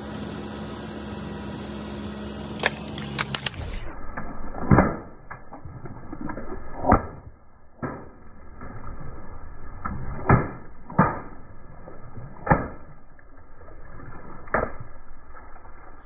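Water balloons bursting one after another under a slowly rolling car tyre: about seven sharp pops spread over several seconds, with water spraying onto the pavement. A few light clicks come before the first pop.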